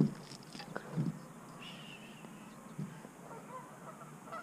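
A few light knocks, with a short, faint bird call about halfway through.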